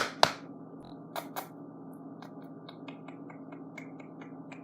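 Scattered sharp clicks and taps over a steady low hum, with two loud knocks at the start and another pair about a second in.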